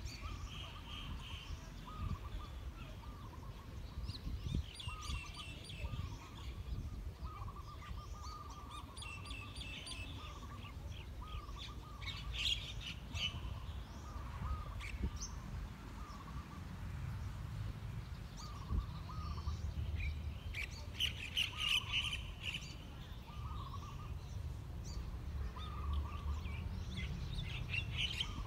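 Birds chirping and calling, with short repeated call notes and scattered bursts of higher chirps, over a low steady rumble that grows louder in the second half.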